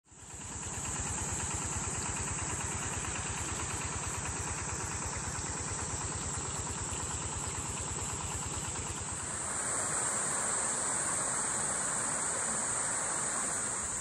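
A steady high-pitched insect chorus, with the low, even throb of an idling engine underneath that fades away about nine seconds in.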